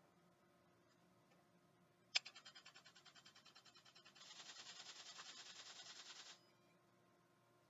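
ProAdjuster chiropractic instrument tapping on the second thoracic vertebra at 20 pounds of pressure, about ten taps a second. The tapping starts about two seconds in with a sharp click and grows louder and brighter about two seconds later. It cuts off suddenly after about four seconds, the instrument stopping automatically once joint motion is restored.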